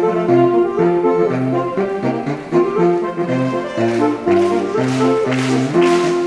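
Saxophone quartet playing a classical piece: held chords over a bass line of short repeated low notes. Rhythmic swishing strokes join in about four seconds in.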